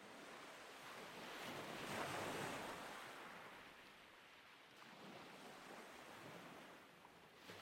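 Faint outdoor rushing noise, swelling about two seconds in and easing off by four seconds, then lower and steady.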